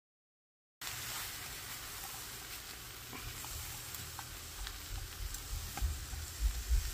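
Frying-pan sizzle as seared mushrooms and onions are tipped from one pan into a skillet of fried cabbage and Brussels sprouts, starting about a second in, with scattered light ticks and low bumps from the pans that grow toward the end.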